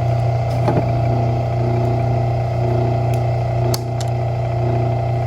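Wire stripping machine's motor running with a steady hum, with a few sharp clicks and clatters as wire is worked through it.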